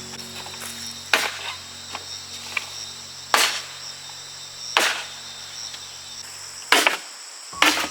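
Crickets chirping steadily, with about five sharp knocks of a tool striking bamboo, spaced one to two seconds apart. Soft background music with held low notes underneath.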